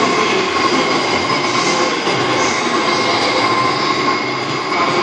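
Romi Centur 30D CNC lathe machining a part: a steady dense hiss with several steady whining tones over it.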